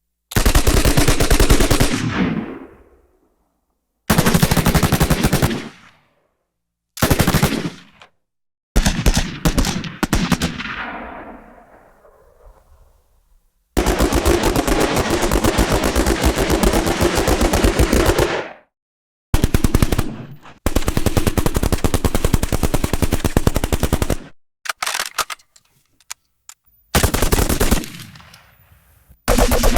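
Machine gun firing in a series of bursts of rapid shots, some short, two lasting about four to five seconds; several bursts end in a long echoing tail that fades out.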